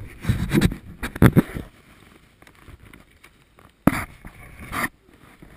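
Muffled knocks and scraping rustles against a covered camera, typical of handling noise. They come in loud bursts through the first second and a half, then again after a sharp knock about four seconds in.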